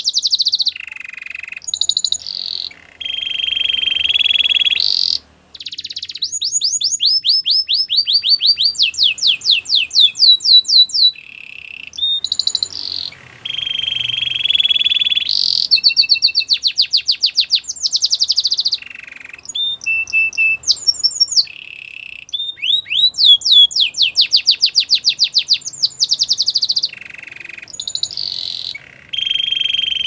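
A domestic canary singing a long, continuous song of changing phrases: fast trills of rapidly repeated notes, held rolling tones, and rising sweeps, with short breaks between phrases.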